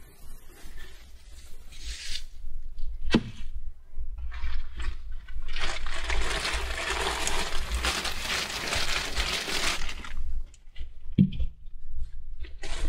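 A large backpack being rummaged and unpacked by hand: rustling of its fabric and the packing inside, loudest for about four seconds in the middle. A single sharp knock comes about three seconds in, and another near the end.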